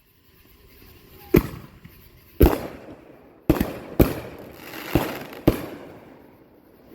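Consumer fireworks going off: six sharp bangs at uneven spacing over about four seconds, each followed by a short fading tail.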